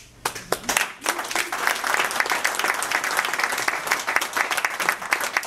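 A small audience applauding by hand: a few scattered claps, then a dense, sustained round of clapping from about a second in.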